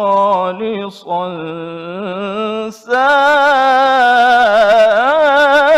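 Male qari reciting the Quran in the melodic, ornamented style, drawing out the word "khalisan" in long wavering held notes. He breaks off briefly about a second in and again near three seconds, then comes back louder, his line gliding upward near the end.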